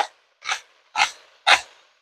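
Hand-twisted salt grinder crunching coarse pink Himalayan salt crystals: four short grinds, about two a second.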